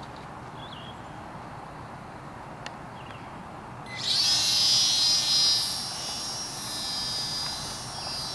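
The small electric motor and propeller of a Flyzone micro Tiger Moth RC biplane spooling up to a high whine about four seconds in as it is hand-launched, then growing fainter.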